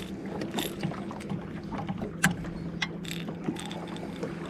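Scattered small clicks and knocks from handling a fishing rod, hook and fish grips while unhooking a small catfish, over a steady low hum; one sharper click a little over two seconds in.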